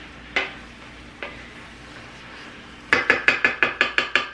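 Metal cooking utensil striking a pan: two single clinks, then about ten quick ringing taps in a row near the end, over the steady sizzle of food sautéing.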